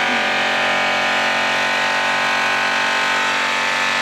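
DeWalt variable-speed polisher running steadily with a yellow airway cutting buff pressed against a metal wheel, a steady whine of several tones with the hiss of the buff on the metal.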